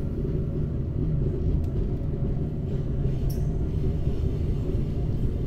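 Zentralbahn train running downhill, a steady low rumble of wheels and running gear on the track.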